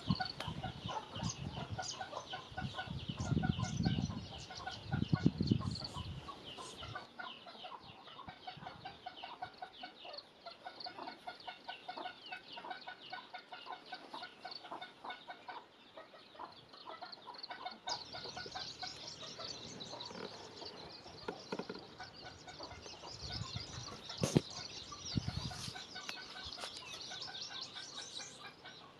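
Chickens clucking and calling continuously, a dense chatter of short calls that grows busier and higher in the second half. There are a few low thuds in the first several seconds, and a sharp knock comes about 24 seconds in.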